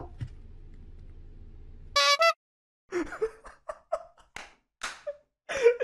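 Laughter in short, broken bursts, starting with a brief high cry about two seconds in. Before that, a low steady hum runs and then stops.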